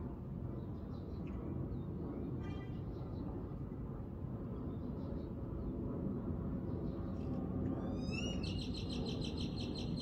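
Birds calling over a steady low outdoor rumble: scattered faint chirps, then about eight seconds in one bird starts a fast trill of repeated high notes, the loudest sound here.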